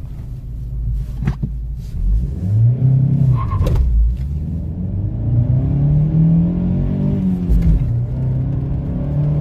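Opel Astra H's 1.6-litre 105 hp four-cylinder petrol engine, heard from inside the cabin, pulling a full-throttle standing start. It revs up about two seconds in, and its pitch climbs steadily as the car gets moving. The pitch drops about seven seconds in at an upshift, then climbs again.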